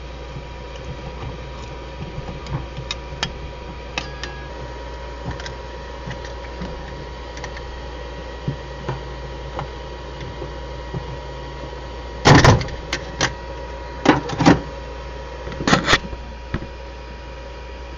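A thin metal scraper prying a freshly printed PLA part off a 3D printer's taped bed, with light scraping and clicks, then a run of loud knocks and clatters about twelve to sixteen seconds in. A steady machine hum runs underneath.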